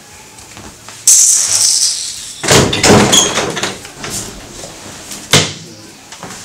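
Short burst of music with tambourine-like rattling, starting suddenly about a second in and loudest in the middle, then a single sharp knock near the end.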